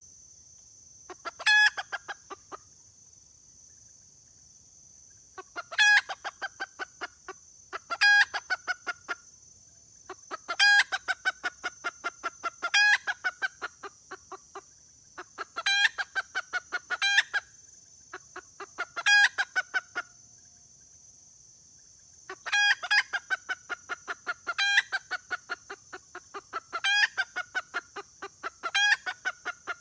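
Junglefowl hen cackling, a repeated 'kekek' call used to call a male. About a dozen bouts, each a loud cluck followed by a run of quicker, fainter clucks lasting a second or so, over a steady high-pitched hiss.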